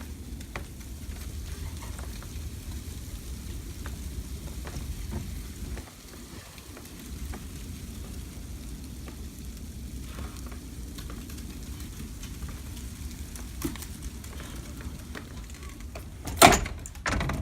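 Steady fine patter of falling precipitation, sounding like rain although snow is reported, with many small ticks over a low rumble. A single loud knock sounds about a second before the end.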